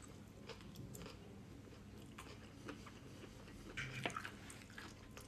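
Faint chewing of a forkful of couscous salad with chopped vegetables and chicken: soft, scattered mouth clicks, a little louder for a moment about four seconds in.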